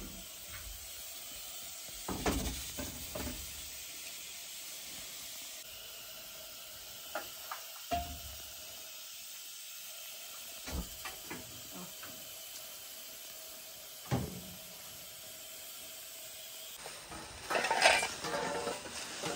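Metal cooking pot and lid clanking a few times as they are handled, over a steady hiss from the pot on a lit gas burner. Near the end comes a louder run of metal clatter.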